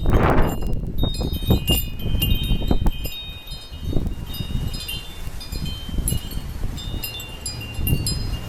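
Wind chimes ringing continuously, struck over and over by a sudden windstorm, their high tones overlapping. Gusts of wind rumble and buffet the microphone, swelling and easing.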